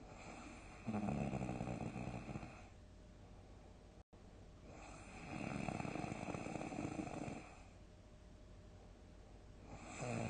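A sleeping person snoring loudly: two long snores about four seconds apart, with a third beginning near the end and quieter breathing between them.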